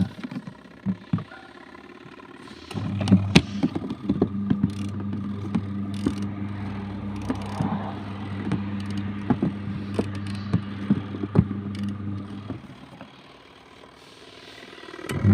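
Adler AD8051 mini washing machine on its wool cycle. The motor hums steadily for about ten seconds with scattered clicks and knocks, and is stopped briefly at the start and again near the end: the gentle stop-start agitation of a wool wash. It starts up again right at the end.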